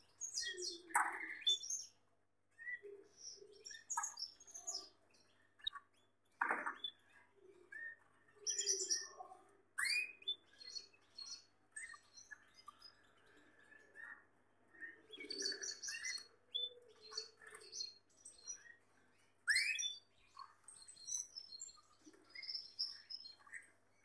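Domestic canaries in cages giving short, scattered chirps and calls, some of them quick rising notes, with brief pauses between them.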